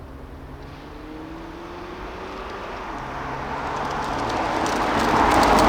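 A 2020 Toyota Avalon TRD with its cat-back dual exhaust drives up and passes close by. Its engine and exhaust note grows steadily louder to a peak near the end, and its pitch rises gently as the car gathers speed.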